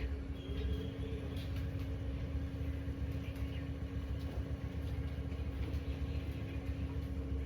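Steady low rumble with a constant hum running underneath.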